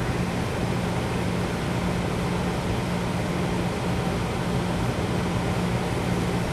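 Honeywell 50-pint dehumidifier running: a steady, quiet fan rush over a low hum.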